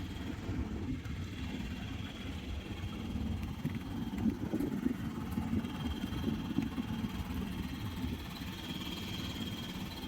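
Motorboat engine running steadily as a low rumble while the boat cruises, with a faint high whine above it.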